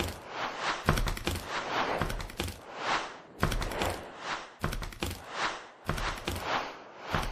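Animated-intro sound effects: a rhythmic run of whooshes, about two a second, each swelling and fading, over a deep thump roughly once a second.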